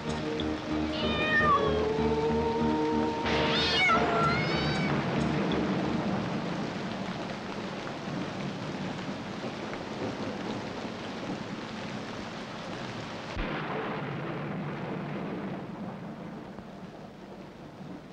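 A cat meowing twice, in falling cries, over steady rain and rumbling thunder, as background music fades out in the first seconds. The rain and thunder thin out near the end.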